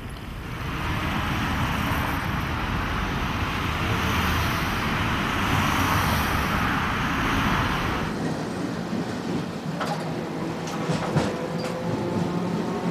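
Streetcar and road traffic passing in the street, a broad steady rush with low rumble. About 8 s in it gives way to the quieter ride inside a moving streetcar, with scattered rattling clicks and a faint steady hum.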